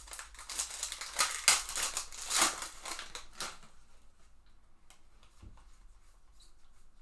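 Foil wrapper of a Panini Contenders baseball card pack crinkling and tearing as it is pulled open by hand, for about three and a half seconds. After that, only faint light clicks as the cards are slid out and fanned.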